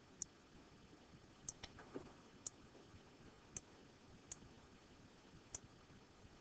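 Computer mouse button clicking: about eight short, sharp clicks at irregular intervals over near silence.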